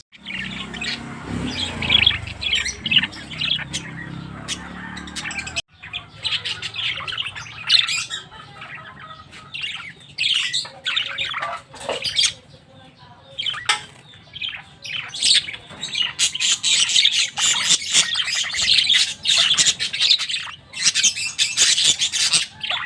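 A flock of lovebirds chattering and squawking, with many short, sharp, high calls overlapping. The calls get busiest in the last several seconds.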